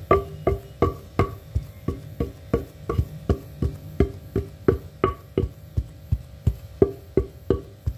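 Wooden pestle pounding rice into flour in a stone mortar, in steady strokes about three a second.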